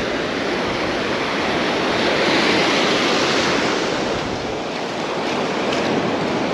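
Surf breaking and washing ashore, with wind on the microphone; the wash swells about two seconds in and eases off.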